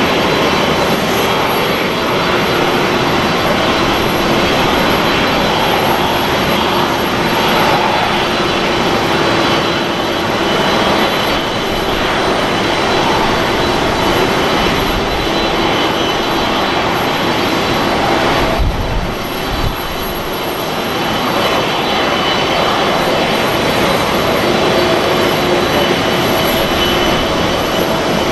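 Boeing 747-400's four jet engines running at taxi power as the airliner taxis past, a steady jet noise with a few held tones. The level dips briefly about two-thirds of the way through.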